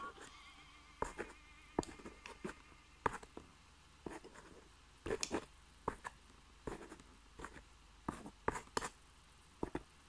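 Base of a small glass tumbler grinding and pressing tablets into powder on a hard book cover. It makes irregular clicks and short gritty scrapes of glass against the pills and the surface.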